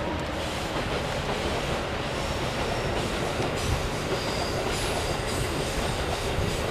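Freight train of tank wagons double-headed by two DD51 diesel-hydraulic locomotives running past: a steady rumble of wheels on the rails, with a faint high-pitched wheel squeal from about three and a half seconds in.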